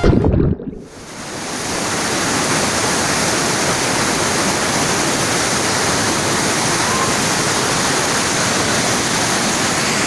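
Steady rushing of river water, like whitewater rapids, fading in about a second in and then holding level.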